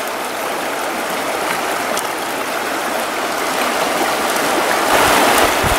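Fast river current rushing, a steady hiss that swells a little near the end, with a few low thumps just before it ends.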